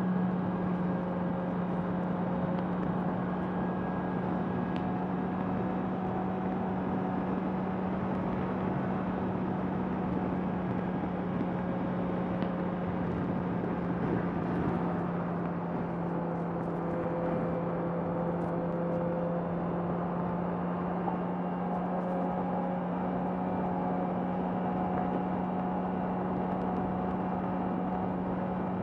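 Honda CBR650R inline-four engine holding a steady note at cruising speed, under a constant rush of wind and road noise. Its pitch sags slightly about halfway through and rises again near the end.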